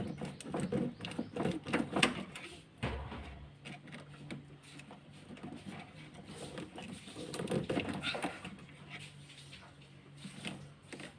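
Small irregular clicks, scrapes and rustles of hand tools working a cable tie loose from a diesel fuel hose, with a dull knock about three seconds in.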